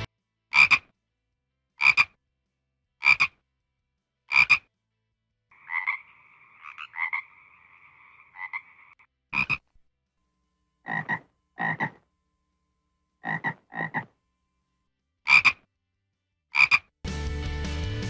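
A frog croaking: short single croaks a little over a second apart, then a longer trilled call lasting a few seconds, then more croaks, several of them in quick pairs.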